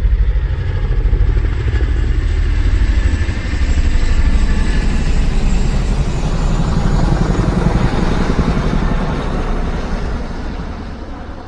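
A motor vehicle's engine running with a fast, even pulse and a heavy low rumble, fading away near the end.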